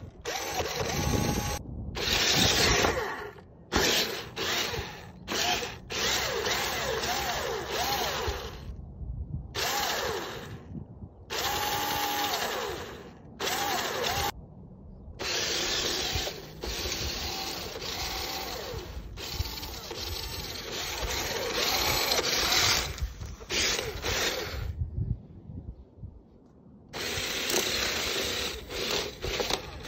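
Electric drive motors and gearboxes of a toy remote-control Toyota Land Cruiser whining as its rubber paddle wheels churn through loose sand and dirt. The sound comes in stretches of a few seconds that stop suddenly, and the pitch rises and falls with speed.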